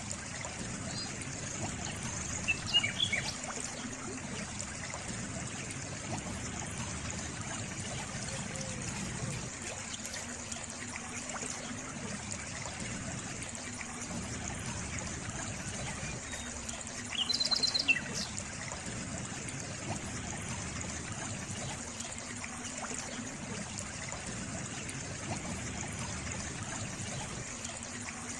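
A small stream trickling and splashing steadily. Brief high bird chirps break in about three seconds in and again, louder, a little past the middle.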